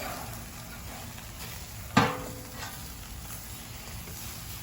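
Chicken sizzling on a charcoal grill, with a single sharp metal clank about two seconds in that rings briefly.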